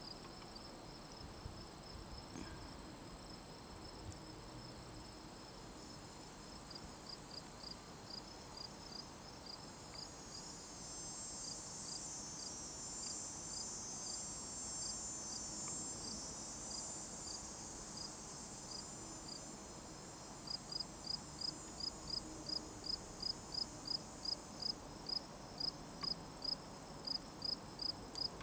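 Insects stridulating: a steady high-pitched trill throughout, joined by a second insect's short, regular chirps at about two and a half a second, which become clear and louder about two-thirds of the way through.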